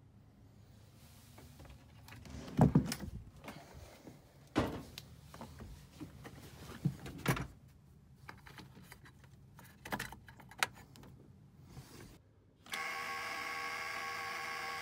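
Knocks, clicks and rustling from hands working among the wiring behind the helm panel, the loudest knock about three seconds in. About thirteen seconds in, the boat's inboard main engine comes in abruptly, running steadily.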